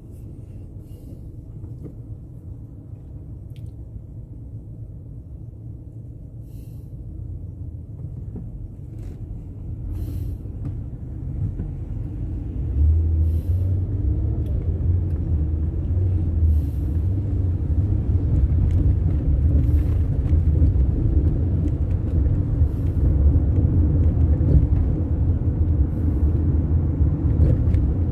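Car pulling away from a standstill and gathering speed: a low engine and road rumble, quiet for the first several seconds, grows over a few seconds about a third of the way in, then stays loud as the car drives on.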